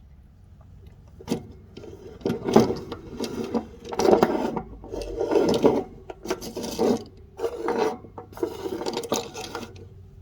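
A series of scraping and rubbing noises, like objects being handled and slid over a surface, in short bursts about a second long.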